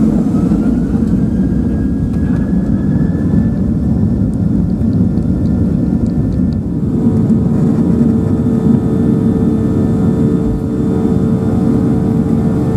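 Cabin of a Boeing 737-800 on its takeoff roll: a steady loud roar of the CFM56 engines at takeoff thrust with runway rumble, and a whine rising in pitch over the first few seconds. A steady hum joins about halfway through.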